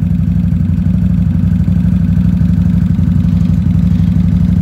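Can-Am Outlander ATV engine idling steadily, with a rapid, even pulsing.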